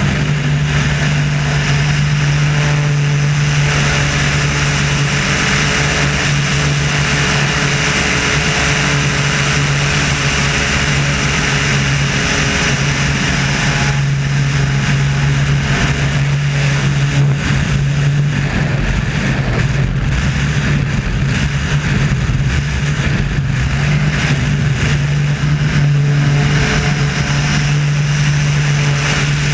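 Engine and propeller of a Wolf Pitts Pro aerobatic biplane running hard in flight, heard from a camera on the outside of the aircraft with air rushing past. Past the middle the engine note wavers and dips for several seconds, then steadies again.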